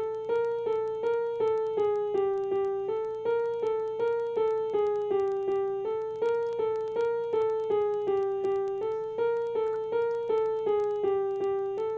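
Sampled grand piano from Reason's NN-XT sampler playing a one-bar loop of single notes, about three a second, moving between two nearby pitches. The short phrase repeats about every three seconds.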